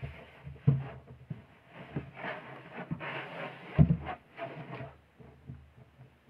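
Handling noise: a hollow plastic leg mannequin being knocked and moved while shorts are pulled off it, with fabric rustling and several thumps, the loudest about four seconds in.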